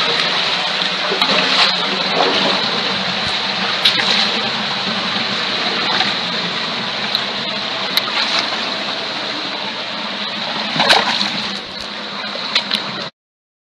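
Running water of a shallow rocky stream, a steady rush, with splashing as it is waded through and scattered sharp knocks, a louder cluster of them a little before the end. The sound cuts off abruptly near the end.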